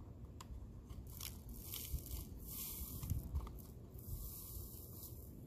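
Powder scraping and hissing as it is funnelled into a paper tube, in two stretches, with a few light taps and clicks.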